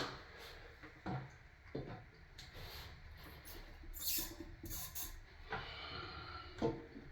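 A few separate light knocks and clicks with short scraping hisses, from hand work on fixtures such as a toilet seat and its hardware.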